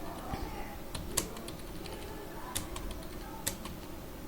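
Computer keyboard being typed on slowly, a few separate keystrokes with three sharper clicks among fainter taps, as letters are keyed one at a time in a typing-practice lesson.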